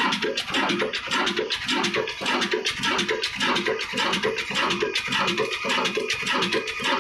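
22 HP Ruston Hornsby stationary diesel engine running steadily, its big flywheel turning, with an even, rhythmic mechanical clatter.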